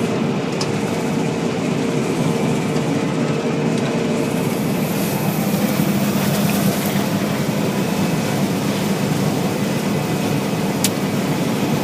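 Combine harvester running steadily while harvesting soybeans, a continuous mechanical drone with a few steady hums. A single short click near the end.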